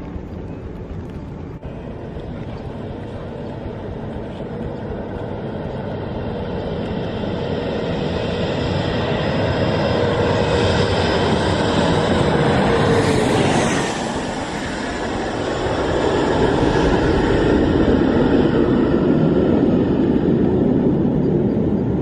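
Twin-engine regional jet landing low overhead. Its jet noise builds for about twelve seconds, with a whine that drops in pitch as it passes overhead, dips briefly, then comes back as a loud broad roar as the aircraft goes away toward the runway.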